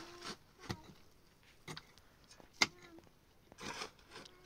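Hand tools digging into dry, hard earth: sharp separate strikes about once a second, with a longer shovel scrape through the soil near the end.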